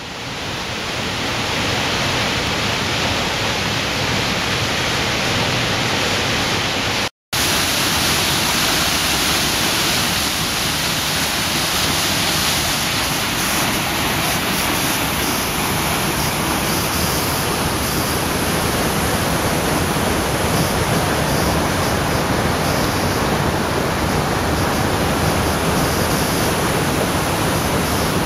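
Waterfall: a loud, steady rush of falling water. It drops out to silence for a split second about seven seconds in.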